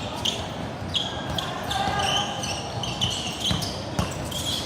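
Basketball game on an indoor court: a ball bouncing with several sharp thuds, and short high squeaks of sneakers on the hardwood floor.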